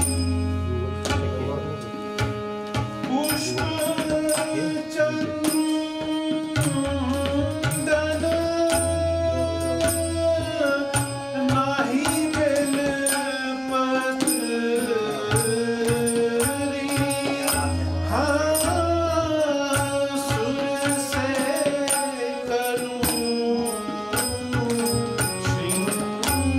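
A Kumauni baithak holi song in raag Kafi: a male voice sings long, gliding phrases to harmonium with tabla accompaniment. The tabla plays a steady stream of strokes, and deep booming strokes of the bass drum come at intervals.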